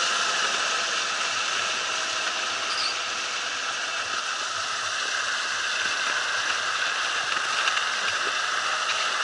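KamAZ six-wheel-drive diesel truck running under load as it pulls a trailer over packed snow: a steady, hiss-like running noise with little deep rumble.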